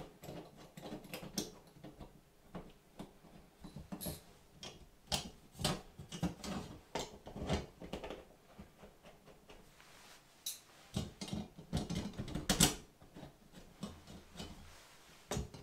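Irregular clicks, taps and light knocks of a metal Samsung Frame TV wing bracket being handled and set in place against the wall, with the loudest knock about three quarters of the way through.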